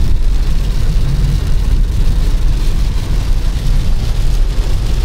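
Steady cabin noise of a car driving through heavy rain: tyres hissing on the wet road and rain on the car's body and windows, with a deep rumble underneath.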